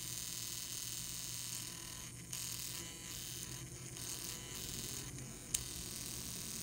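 Tiny electric motor of a QuantowGear micro RC car buzzing steadily, with a few brief dips and one sharp click about five and a half seconds in.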